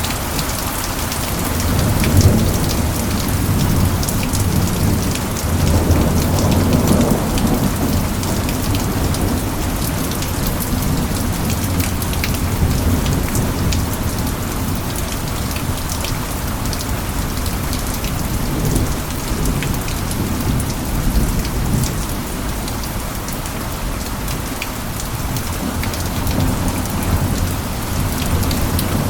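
Steady heavy rain with many fine drop hits, over a low rumble of thunder that swells around two seconds in and again around six to seven seconds in.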